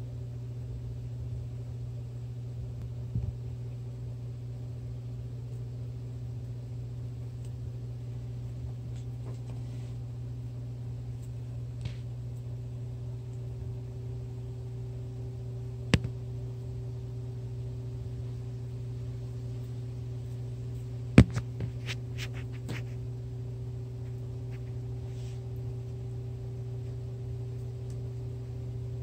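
A steady low mechanical hum throughout, with a few sharp taps as a kitten bats at a feather toy: one about halfway through, and a louder one about two-thirds of the way in, followed by a quick string of small ticks.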